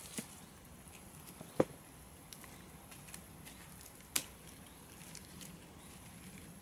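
Pieces of dead wood knocking against each other as they are laid onto a log pile: a few sharp knocks, the loudest about one and a half seconds and four seconds in.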